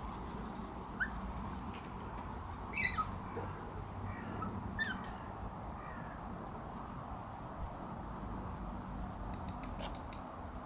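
Puppies giving a few brief high-pitched whimpers in the first five seconds, over steady low background noise.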